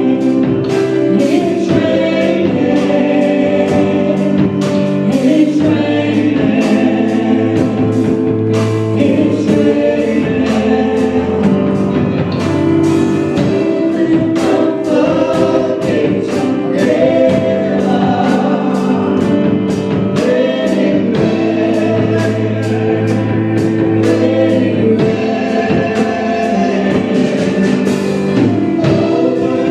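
Gospel praise team singing together like a choir over instrumental backing with a steady beat.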